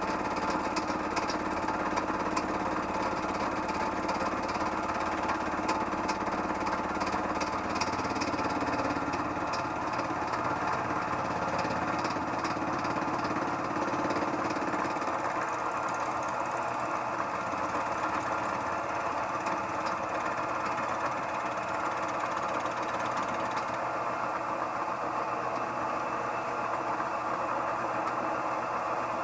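Harbor Freight mill-drill-lathe combination machine running under load as its fly cutter takes a facing pass across a metal workpiece. The motor and spindle give a steady machine hum, with a rapid ticking from the cutter that fades about halfway through.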